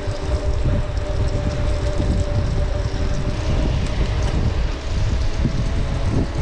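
Wind rushing over the microphone of a camera on a moving bicycle, a loud low rumble, with a steady hum running underneath.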